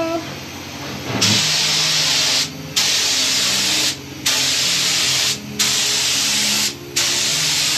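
Paint spray gun hissing as it sprays primer onto a wall in a run of passes. After a quieter first second, the hiss cuts out briefly between passes about every second and a half.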